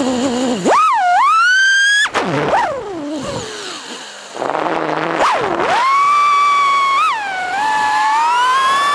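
Small FPV quadcopter's motors whining, the pitch sweeping sharply up and down with the throttle, cutting off abruptly about two seconds in and again near the end before spinning back up.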